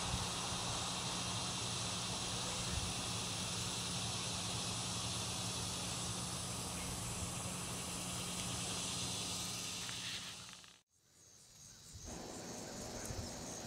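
Outdoor garden ambience: a steady insect hiss over a low hum. It cuts out for about a second near the end, then resumes with a regular high chirping.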